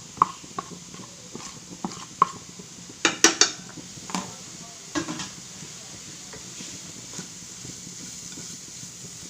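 A metal spoon knocking and scraping against a frying pan as spice powders are tipped in and stirred into frying onions, with a quick run of ringing clinks about three seconds in. A faint steady sizzle continues underneath.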